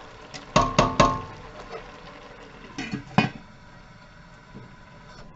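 Stainless steel pot lid clanking down onto a stockpot, with a short metallic ring after it. Two more sharp knocks follow about three seconds in.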